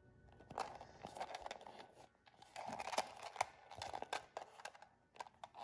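Handling noise from a small coated-canvas zip pouch being spread open and turned in the hands: rustling with many short clicks.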